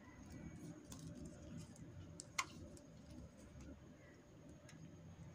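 Faint handling noise of hands moving a crocheted piece while measuring it, with a few light clicks and one sharper click a little over two seconds in.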